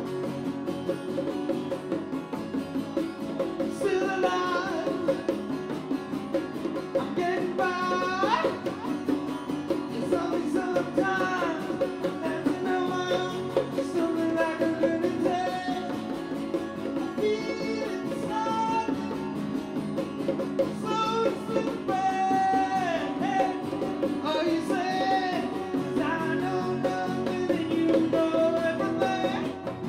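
Live acoustic band: strummed acoustic guitar and hand drums, with a man singing the melody from about four seconds in.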